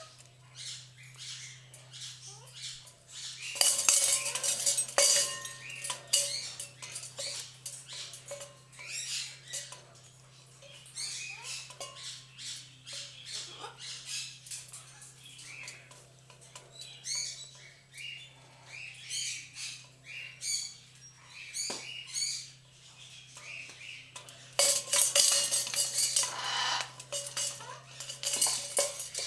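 Macaw chewing and crunching on a hanging chew toy with its beak: a busy run of small clicks, cracks and rattles. There are louder, harsher stretches about four seconds in and again near the end.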